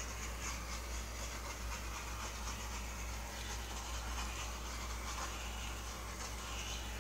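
Handheld gas torch hissing steadily as its flame is passed over wet acrylic pour paint.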